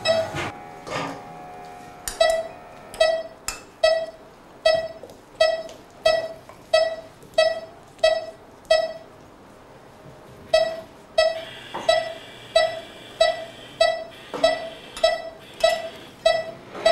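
Operating-room pulse oximeter beeping with each heartbeat: short, identical mid-pitched beeps a little under twice a second, pausing for about a second and a half midway before resuming.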